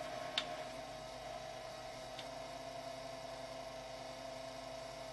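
Shuttle small-form-factor PC running just after switching on, its fans and power supply giving a steady hum with a faint whine. Two faint clicks come about half a second and two seconds in.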